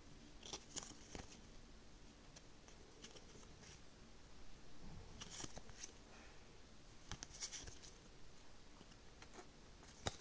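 Faint rustling and light clicks of printed game cards being slid apart and sorted by hand, in a few short scrapes.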